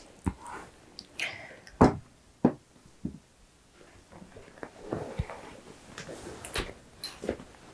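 Handling noise: cloth and clothing rustling against a clip-on microphone, with several sharp knocks and clicks, the loudest about two seconds in.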